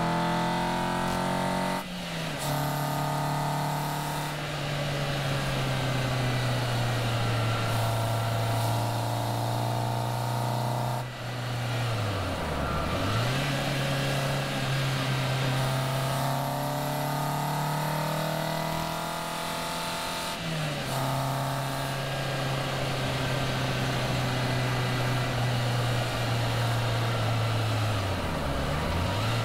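A Caterham Seven's engine pulls steadily on the open road, with wind and road noise. The engine note shifts in pitch a few times, and twice the revs dip sharply and come straight back, once a little before halfway and once near the end.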